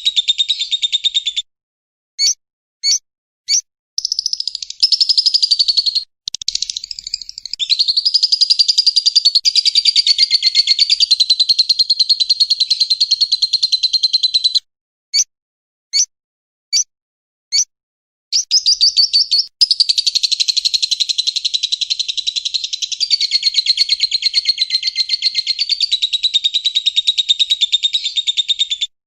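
A bird's long stretches of fast, shrill chattering trills, broken twice by a handful of short separate notes. Each stretch stops dead into silence, as in an edited bird-song training recording.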